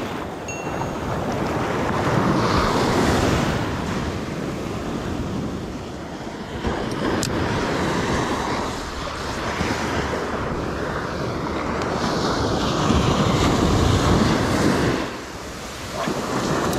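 Small surf breaking and washing up the beach, with wind buffeting the microphone; the noise swells and falls with each wave, dipping briefly about fifteen seconds in.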